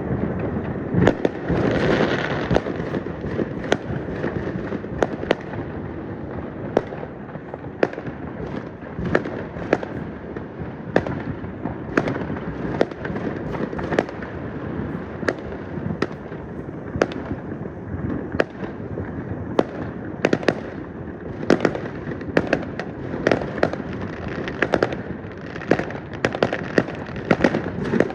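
Many fireworks going off at once: a steady stream of sharp cracks and bangs, several a second and denser near the end, over a continuous rumble of distant explosions.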